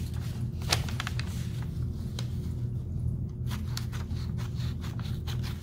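Steady low room hum with scattered light clicks and rustles as a sheet of graph paper and a pair of scissors are handled.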